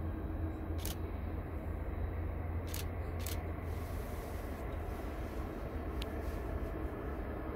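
Distant jet engines of a taxiing Boeing 747, a steady low rumble and hiss, with a few brief clicks.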